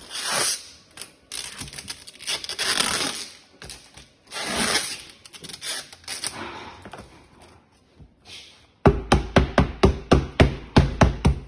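Packing tape pulled off its roll in several long, noisy rips as it is wound around a bundle of cardboard firework tubes. Near the end, a hammer knocks rapidly on top of the tube bundle, about a dozen sharp strikes at roughly five a second, louder than the tape.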